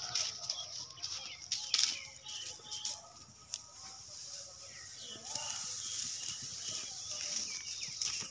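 Dry paddy straw rustling as armfuls are carried and spread by hand, in irregular bursts that are busiest in the first few seconds. Birds chirp in the background.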